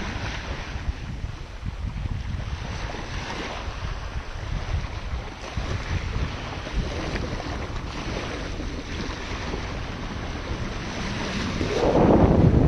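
Wind buffeting the microphone over small waves lapping and washing on a sandy beach, growing louder about a second before the end.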